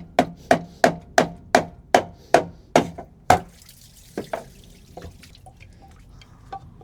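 A run of about ten sharp knocks on something hard, in a steady rhythm of roughly three a second, followed by a few lighter knocks and clicks.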